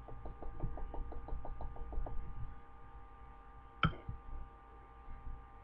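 Quick, even tapping, about six taps a second, stopping about two seconds in, then one sharp knock a little before four seconds.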